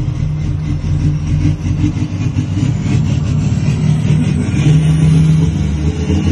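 Cummins ISX inline-six diesel of an International PayStar dump truck running with a steady low drone.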